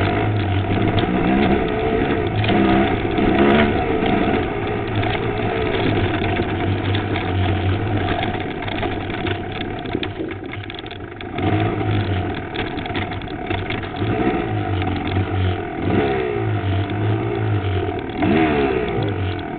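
Enduro dirt bike engine heard from the bike itself, revving up and down again and again as the throttle is worked on a rough trail, with frequent knocks and rattles; the revs ease off briefly about halfway through.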